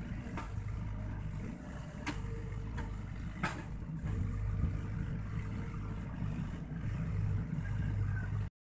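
Sany SY55C mini excavator's engine running steadily while the machine works, growing louder about halfway through, with a few sharp cracks over the engine in the first half. The sound cuts off abruptly just before the end.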